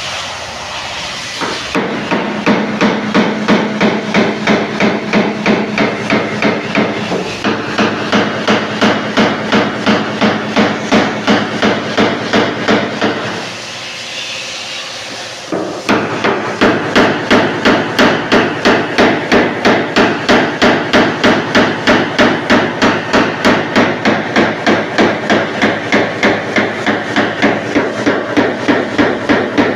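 Paintless dent repair tap-down punch struck with a small hammer against a car's steel body panel in quick, even light taps, about three a second, with a short break a little before halfway. The taps knock down the tiny high spots around a dent to level the panel.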